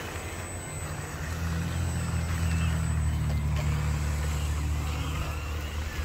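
Engine sound of a radio-controlled scale dump truck driving: a steady low diesel-like drone.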